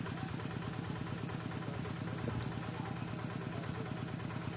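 Single-cylinder diesel engine of a two-wheel hand tractor running steadily with a fast, even chugging, working a moldboard plough.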